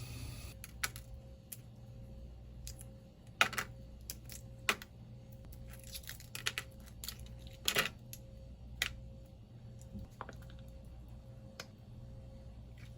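Irregular sharp clicks and light taps, about a dozen spread out with no steady rhythm, two of them louder, over a faint low hum.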